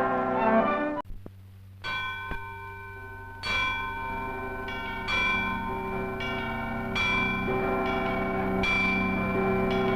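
Church bells ringing, several pitched bells struck one after another with long overlapping ringing. The sound breaks off about a second in and a new peal begins about two seconds in, with a fresh strike roughly every one and a half seconds.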